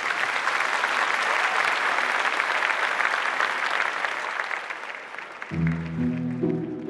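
Studio audience and judges applauding. About five and a half seconds in, the applause fades as a slow music intro begins with sustained low notes.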